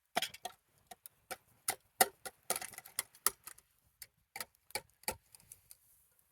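A quick, irregular run of sharp clicks and light knocks, a couple of dozen over about five seconds, the loudest about two seconds in, stopping shortly before the end.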